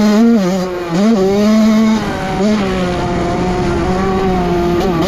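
Honda CR85's single-cylinder two-stroke engine running at high revs as the dirt bike is ridden hard; the revs dip and pick back up near the start, about a second in and again about two seconds in, then hold steady.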